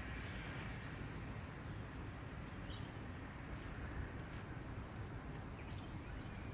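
Birds chirping a few short times over a steady background hiss and low rumble of early-morning storm weather.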